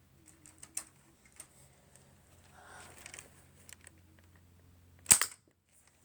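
Lego rubber-band rifle firing once about five seconds in: a single sharp plastic snap. Before it come a few faint clicks.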